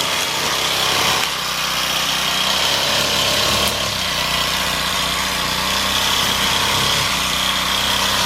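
Gas string trimmer (weed whacker) running steadily at working speed.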